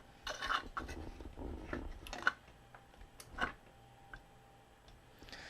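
Light, scattered clicks and rustles of small tools and parts being handled on a workbench, dying away to quiet after about three and a half seconds.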